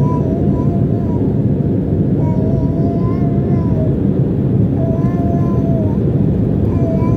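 Airliner engine and airflow noise heard from inside the passenger cabin: a loud, steady, deep rumble. Faint wavering tones come and go above it.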